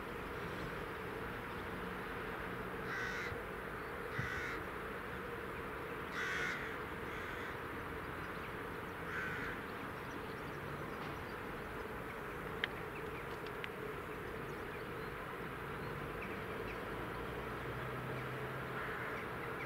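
Crows cawing: about six short scattered caws over a steady background hum, with one sharp click about two-thirds of the way through.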